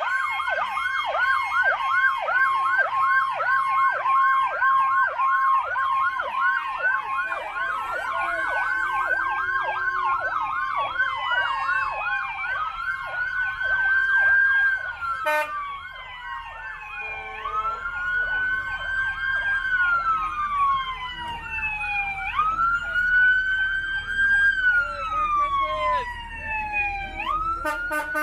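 Emergency vehicle sirens sounding: a fast yelp cycling about three times a second gives way, about halfway through, to slow wails that rise and fall every few seconds, with more than one siren overlapping.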